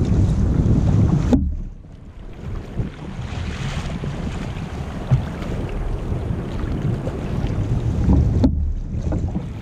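Wind buffeting the microphone with a loud low rumble that cuts off suddenly about a second in, then water splashing and rushing along the hull of a paddled sit-on-top kayak.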